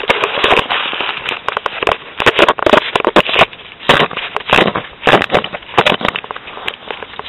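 Irregular, loud clicking and crackling from the fishing rod and reel being handled while a hooked fish is fought and the drag is being set.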